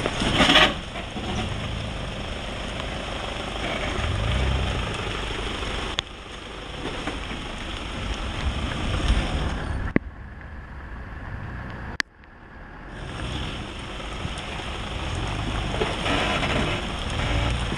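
Toyota Fortuner 4x4 engine running at low revs as the vehicle crawls over rocks, under a steady rushing hiss. The sound drops away abruptly about ten seconds in and comes back a couple of seconds later.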